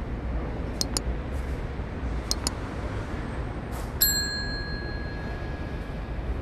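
Sound effect of an animated subscribe-button overlay: two pairs of quick mouse-style clicks, then a bright notification-bell ding about four seconds in that rings out over about two seconds. Under it runs a steady low background rumble.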